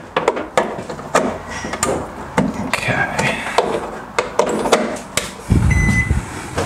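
Clicks, knocks and rattles of a built-in microwave oven being plugged in and handled in its kitchen housing. A dull thud comes about five and a half seconds in, and at the same moment a short, high single-tone beep sounds as the microwave powers up.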